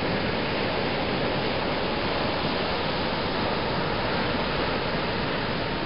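Ocean surf washing onto the beach, a steady even rush with no single wave break standing out.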